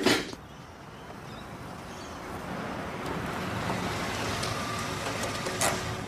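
Road traffic noise: a steady rush of passing vehicles that grows louder over the first few seconds and then holds, with one short knock about five and a half seconds in.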